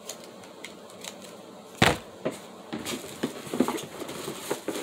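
Makeup packaging handled by hand: one sharp knock about two seconds in, followed by a run of small plastic clicks and rustles as items are moved around.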